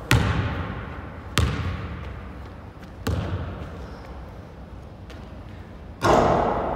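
A basketball bounces three times on a hardwood gym floor, each bounce echoing around the hall. About six seconds in the shot strikes the rim with a louder, ringing clang.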